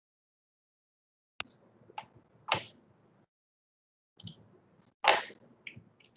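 Computer keyboard and mouse clicks, about six sharp separate strokes, the loudest about five seconds in.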